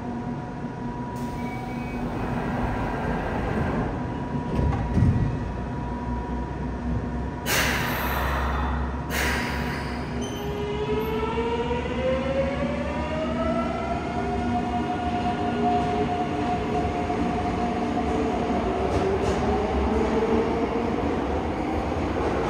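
Mitsubishi GTO-VVVF inverter train pulling out of an underground station: two short hisses of air about halfway through, then the inverter's whine rises in pitch as the train accelerates and levels off into a steady tone as it runs away.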